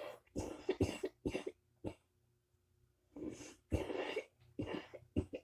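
A person coughing in two fits of several harsh coughs each, with a pause of about a second and a half between them.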